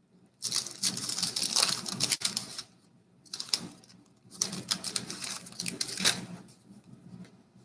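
1989 Bowman baseball cards being handled: quick papery rustling and flicking in three bursts, the first and last about two seconds long and a short one between.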